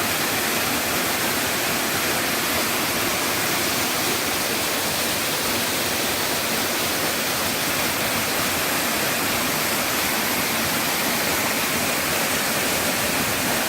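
Waterfall splashing in a steady, unbroken rush of water; the falls are fed by snowmelt.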